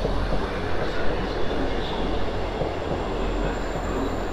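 Diesel train standing at a platform with its engine idling: a steady low hum under an even mechanical rumble.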